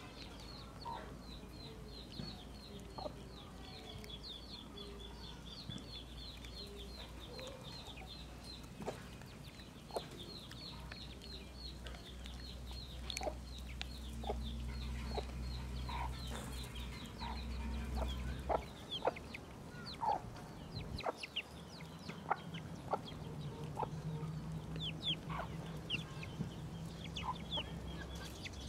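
Chickens clucking, with a fast run of short high chirps repeating several times a second in the first third and again near the end, and scattered sharp clicks.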